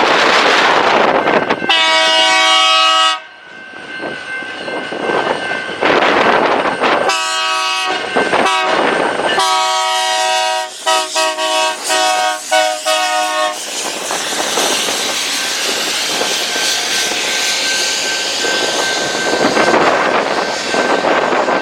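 Diesel locomotive air horn sounding a series of blasts: one long blast, then after a pause several more long and short blasts. Under the horn is the steady rushing noise of a train rolling past.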